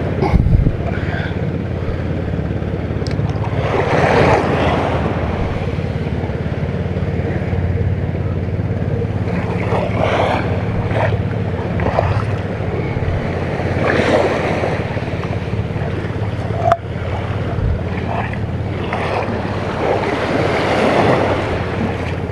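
Sea waves washing onto the beach, swelling and falling back every few seconds, with wind buffeting the microphone and a steady low hum underneath.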